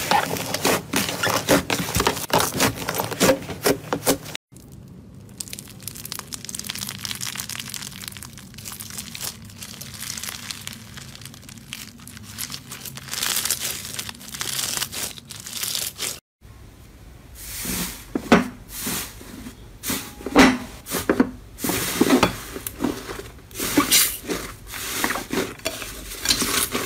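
Slime being kneaded and squeezed by hand, crackling and popping as it stretches and tears. In three short clips: fluffy teal slime pressed in a bowl, then grainy yellow slime with a denser, steadier crackle, then purple slime giving louder separate pops.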